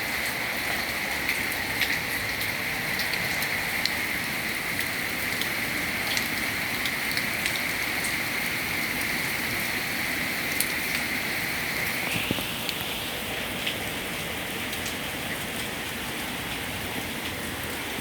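Heavy rain pouring down: a steady hiss with scattered drops tapping close by. About twelve seconds in, the hiss shifts a little higher and slightly quieter.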